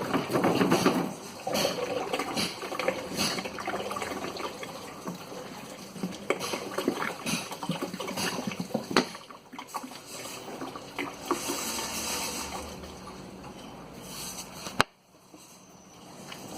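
Fuel splashing and trickling into the tank of a homemade parts washer, with scattered small knocks and clatters. The sound drops off abruptly near the end.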